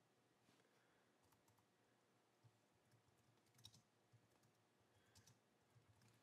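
Faint computer keyboard keys clicking in irregular, scattered strokes as text is typed, over near silence.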